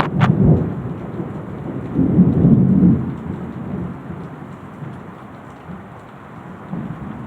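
Steady rainfall with a low rumble of thunder that swells about two seconds in and fades after about a second, leaving the rain.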